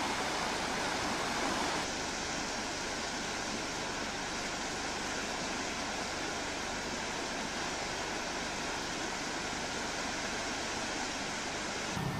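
Fast, turbulent floodwater in a river rushing steadily, a continuous even noise of water. The level dips slightly about two seconds in.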